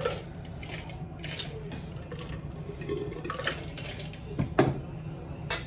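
Wet slurping of noodles, with repeated short slurps over a steady low hum, and two sharp knocks near the end.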